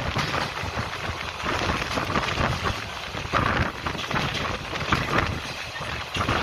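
Passenger train running at speed behind twin WDM-3D diesel locomotives, heard from an open coach door: a dense rushing noise of wind and wheels clattering on the rails, with the locomotives' diesel engines working hard beneath.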